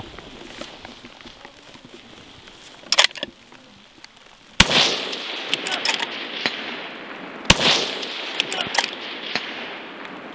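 Scoped precision rifle fired from the prone position: a sharp crack about three seconds in, then two loud shots about three seconds apart near the middle, each trailing off in an echo, with small clicks between them.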